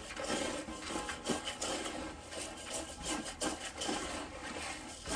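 Dry pigeon feed of corn, peas and small grains being stirred by hand and with a tin can in a feed pan: the grains rustle and rattle, with many small irregular clicks and scrapes.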